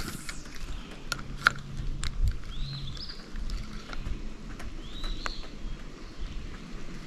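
A bird calling twice, each a short high note rising and falling, about two and a half seconds apart, over scattered light clicks and knocks.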